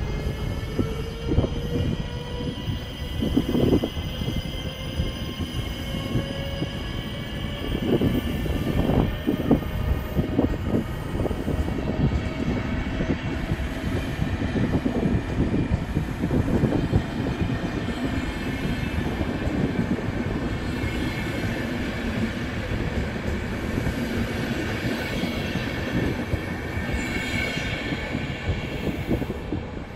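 Passenger train hauled by a Siemens Vectron electric locomotive moving past along a station platform. A faint rising whine comes in the first few seconds, then the coaches roll by with their wheels clattering over the rail joints. A high wheel squeal comes near the end.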